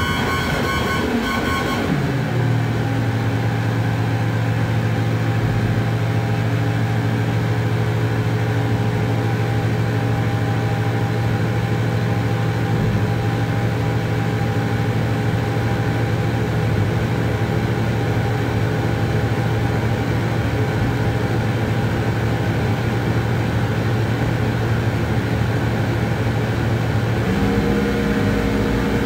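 Homemade light-responsive oscillator synthesizer (OSC^n) playing electronic noise: a pulsing, stuttering cluster of tones for about two seconds, then a steady low buzzing drone held for most of the time, jumping to a higher drone near the end.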